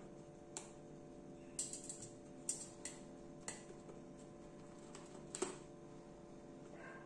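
Irregular light clicks and taps of an African grey parrot's beak working at a snack container, the loudest about five and a half seconds in.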